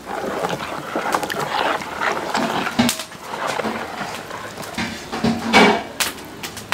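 Spoon stirring a thick, wet slurry of ground jora (malted maize) and water in a plastic bowl: uneven sloshing and scraping. A short pitched cry stands out about five and a half seconds in.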